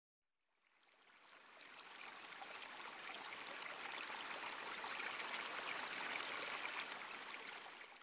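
A steady watery hiss, like rain or running water, fading in about a second in and fading out near the end.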